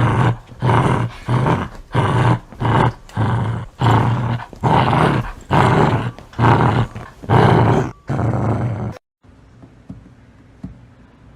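A dog growling in loud repeated bursts, about two a second, that cut off abruptly about nine seconds in.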